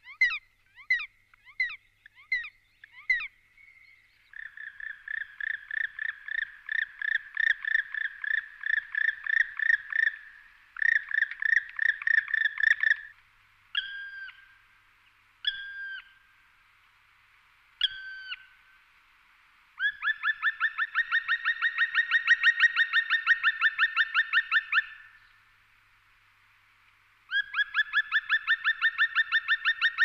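Male black woodpecker calling. It gives several fast runs of loud, ringing repeated notes and, in the middle, three single notes that each drop in pitch at the end.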